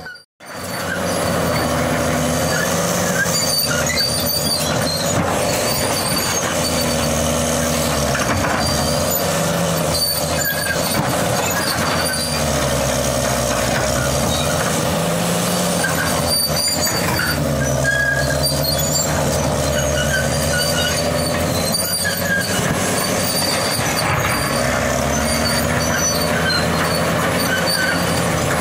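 Caterpillar D6 crawler bulldozer working: its diesel engine labours under load, the note rising and falling every few seconds as it pushes, over the clank and squeal of steel tracks and blade grinding through broken sandstone. The sound cuts out for a moment right at the start.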